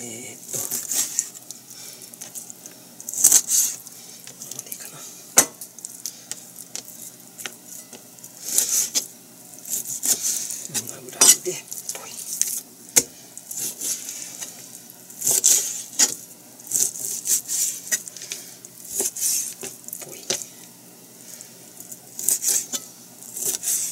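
Raw chicken pieces being mixed through a sticky egg marinade in a bowl: irregular wet squishing with occasional sharp clinks against the bowl.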